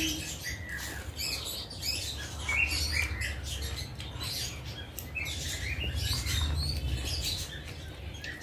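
Close-miked eating sounds: wet chewing, lip smacks and small mouth clicks from eating rice and curry, over a low steady hum.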